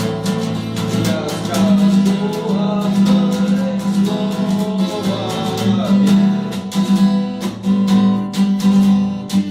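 Acoustic guitar strummed in a steady rhythm, playing the chords of a rock song.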